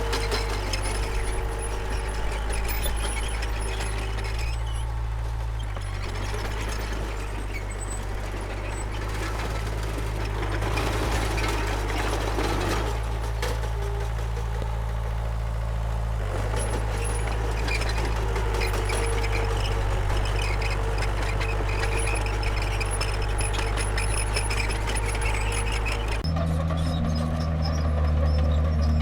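Diesel engine of a Komatsu D31P bulldozer running steadily at work, with a faint whine alongside. Near the end the engine note changes abruptly and gets a little louder.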